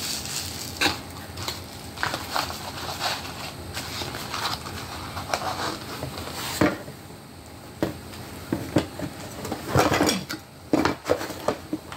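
Irregular clicks, taps and knocks of small hard parts being handled as an electric nail drill is packed back into its case, with a cluster of louder knocks about ten seconds in.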